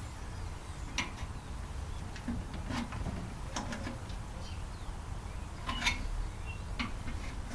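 Irregular sharp clicks and light knocks of tools and metal parts being handled while a microwave oven is taken apart, over a steady low rumble.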